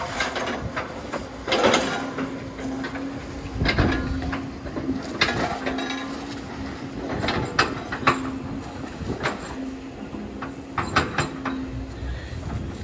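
Building demolition: irregular crunches, cracks and crashes of debris being broken and dropped, over the intermittent low hum of heavy machinery's engine.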